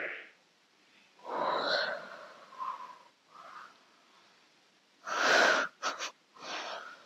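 A woman's breathing: a long breath out a little after the start, then a louder breathy exhale about five seconds in, followed by a few short puffs of breath.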